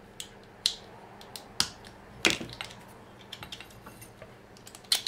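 Irregular sharp clicks and small clatters of 3D-printed plastic parts and small metal fittings being handled and fitted together by hand. The loudest clatter comes a little over two seconds in.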